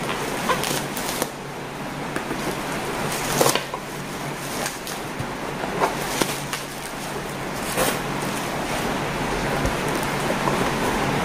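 Plastic bubble wrap crinkling and crackling as it is pulled off a cardboard box, with several sharp crackles, over the steady hiss of heavy rain.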